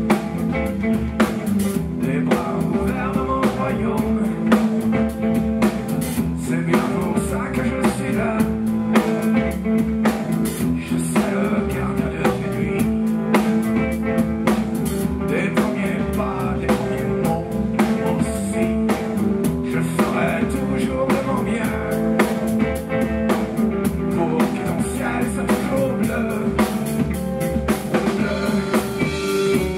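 Live rock band playing: two electric guitars, electric bass and a drum kit keeping a steady beat.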